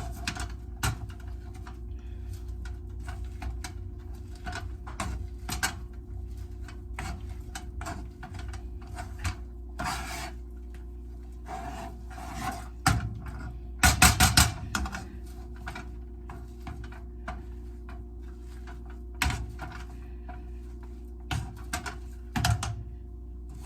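Potatoes being mashed in a pot: a utensil knocking and scraping against the pot in irregular strokes, with a quick run of rapid knocks about fourteen seconds in. A low steady hum runs underneath.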